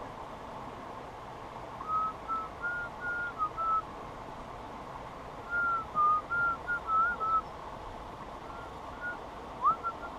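Clear whistled notes in three short phrases of several notes each, held within a narrow pitch range and sliding slightly between notes, over a steady hiss.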